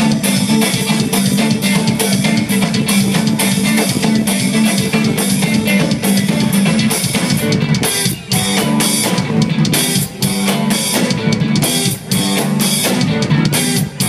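Live indie rock band playing an instrumental passage on electric guitars, bass and drum kit, with the drums to the fore. From about eight seconds in, the band cuts off briefly about every two seconds in short, hard stops.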